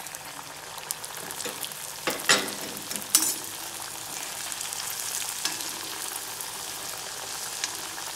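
Hot oil sizzling steadily in a cast-iron kadai as a filled maida pastry deep-fries. The sizzle builds over the first second after the pastry goes in, with a few sharp clicks about two and three seconds in.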